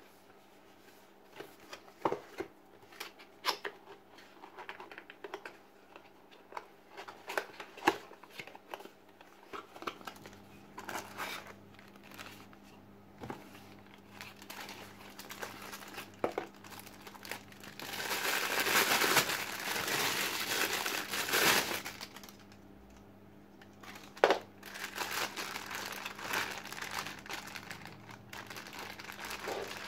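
Cardboard packaging handled: scattered taps and scrapes of card as the box is opened and the inner box slid out. Then loud crinkling of the clear plastic bags wrapping the lens and its pouch, in a long stretch about two-thirds of the way in and again near the end, over a faint steady hum.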